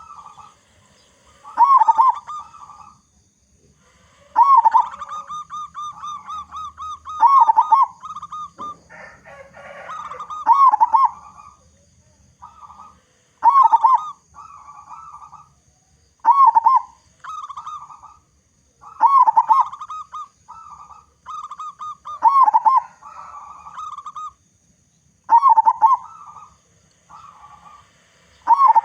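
Zebra dove (perkutut) singing its cooing song: about ten phrases, one roughly every three seconds, each a loud warbled coo followed by a run of quicker repeated notes.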